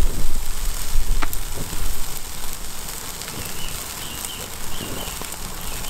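Steak and lamb chops sizzling over a charcoal barbecue: a steady hiss with scattered crackles and pops from the coals. Wind rumbles on the microphone in the first second or so.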